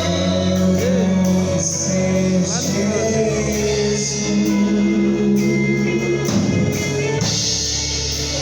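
Live church worship band playing a song, with bass, guitar and drum kit, and singing.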